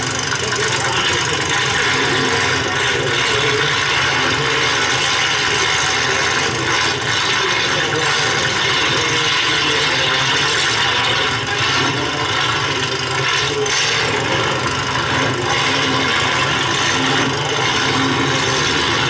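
Stock car engines idling at a standstill under a steady, dense rushing noise.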